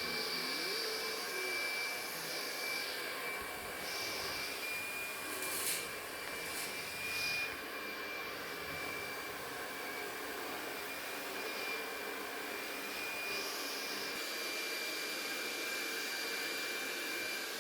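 Handheld hair dryer running steadily, a constant rushing hiss with a fixed high whine from its motor, broken by a couple of brief knocks about six to seven seconds in.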